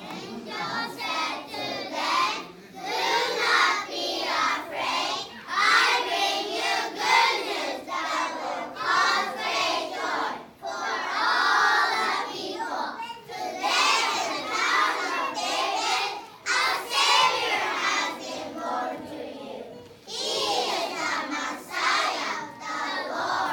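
A group of young children's voices together, loud, in short phrases broken by brief pauses.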